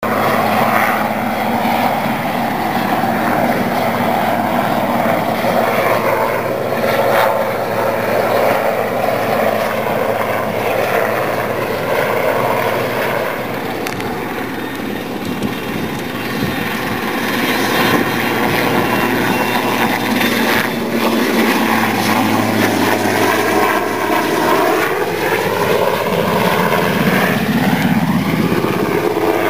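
Sikorsky S-61N search-and-rescue helicopter flying past, its rotors and twin turboshaft engines running steadily. Over the last few seconds the tones slide up and down in pitch as it passes and banks.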